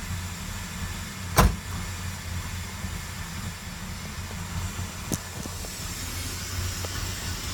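Ford Crown Victoria's 4.6-litre V8 idling steadily, with one sharp knock about a second and a half in and a fainter click around five seconds.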